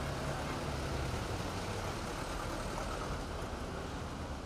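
Road traffic: cars and vans driving past with a steady rumble of engines and tyres.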